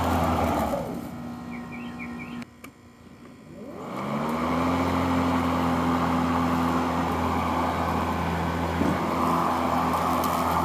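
Hart electric lawn mower motor and blade running, then cutting out about a second in and winding down. It starts again on its own about four seconds in, its pitch rising as it spins up, and then runs steadily. This random start-and-stop may come from the handle not being fully extended and locked on both sides, which sends the mower a shut-off signal.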